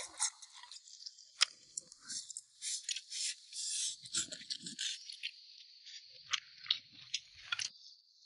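Someone eating at the table: chewing, with irregular short clicks and scrapes of utensils against a bowl.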